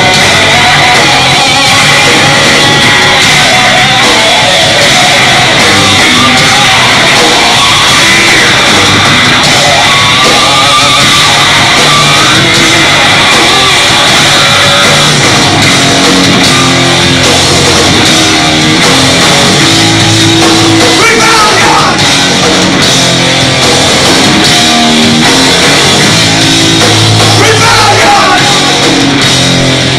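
A doom metal band playing live and loud: heavy electric guitar, bass and drums, with shouted singing at times, most clearly near the end.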